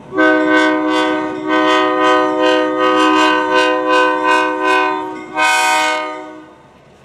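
Diesel locomotive's air horn sounding a chord in one long blast of about five seconds, then a second, shorter blast about five and a half seconds in, as the train approaches. A bell rings steadily underneath, about three strikes a second.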